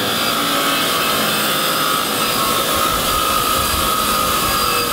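Bench grinder's wire wheel running steadily against the steel front strut tube of a BMW E28, scrubbing grime and rust down to bare metal ready for welding. It makes a steady scrubbing hiss with a high whine over it.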